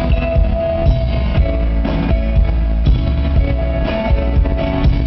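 Live rock band playing with electric guitars, keyboards and drums, with a steady beat, recorded from the audience in a concert hall.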